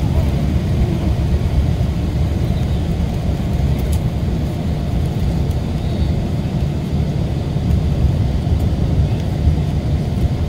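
Mercedes-Benz O-500RSD coach's diesel engine running with a steady low rumble, with no revving or change in pitch.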